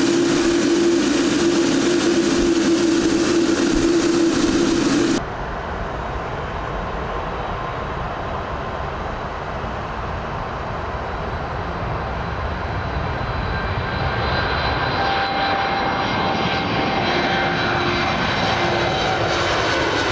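Boeing 787's GE jet engines, first heard close by as the airliner taxis, a loud steady engine sound with a strong held tone. After an abrupt cut, the takeoff roar builds from about two-thirds of the way through and grows louder, with whining tones that slide down in pitch near the end as the plane climbs past.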